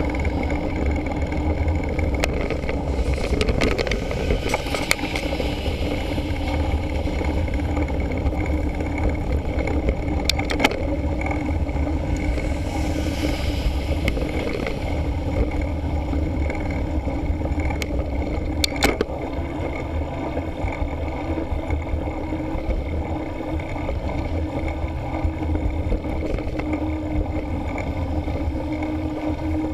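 Steady rumble of wind and road noise picked up by an action camera on a moving mountain bike, with passing road traffic. A hiss swells and fades about 13 seconds in as a dump truck goes by, and a couple of sharp clicks sound during the ride.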